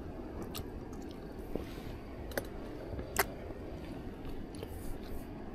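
A person eating pasta: chewing, with a few sharp short clicks, the loudest about three seconds in, over a steady low background noise.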